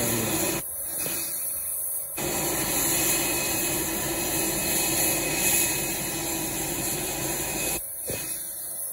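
Falcon 2000's twin CFE738 turbofan engines running at low taxi power: a steady jet rush with a faint high steady tone.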